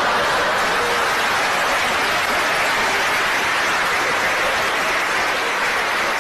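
Audience applauding steadily after a joke.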